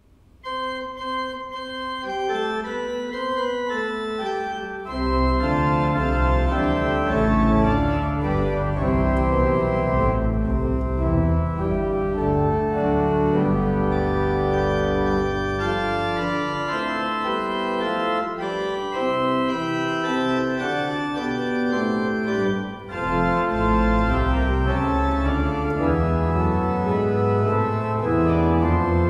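Pipe organ playing sustained chords, soft at first, with deep bass pedal notes coming in about five seconds in and a brief break in the sound about three-quarters of the way through.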